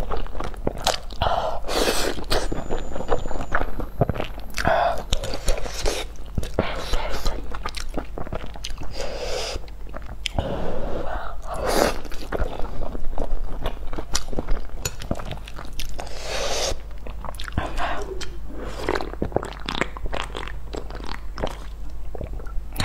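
Close-miked eating of thick spicy noodles: repeated loud slurps of noodle strands, with wet chewing and short sharp mouth clicks and smacks between them.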